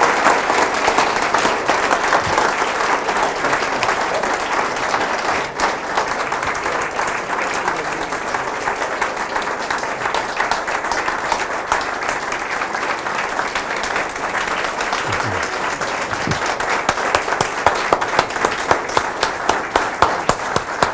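Audience applause, a steady dense clapping that goes on throughout, with single claps standing out more sharply near the end.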